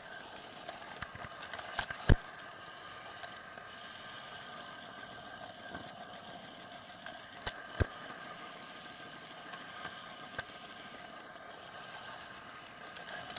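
Model train running along the track, heard from a camera riding on it: a steady motor hum and wheel rumble, with sharp clicks, some in close pairs, as the wheels pass over track joints.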